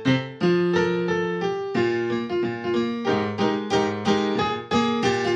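Background music: a piano playing a tune, about three notes a second.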